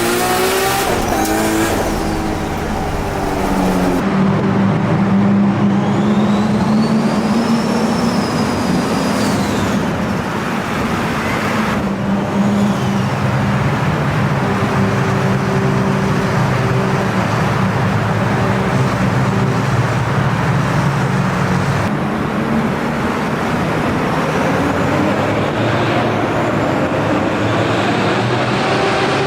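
Engine of a 900-horsepower Nissan R32 GT-R. Its note falls away at the start as the revs drop, then it runs steadily at low revs. A high whistle rises and falls over it, and the sound changes abruptly several times.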